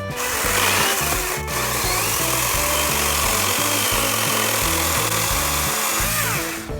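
Kobalt 80V brushless electric chainsaw cutting into wood, starting abruptly, with a brief break about a second and a half in, and winding down in pitch near the end, over background music.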